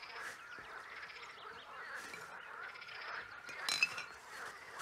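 Plastic bag rustling and crinkling as rubbish is gathered into it, in short crackles with a louder burst a little before the end, over a faint steady background chorus.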